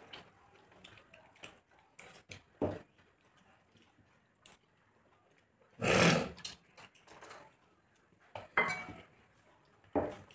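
Close-up eating sounds of people eating rice and curry with their hands: chewing, lip smacks and fingers squishing rice on the plates. Short louder noises are scattered through, the loudest about six seconds in and others near the end.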